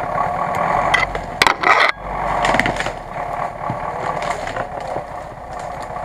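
An off-road vehicle engine running steadily, with a short loud clatter about one and a half seconds in.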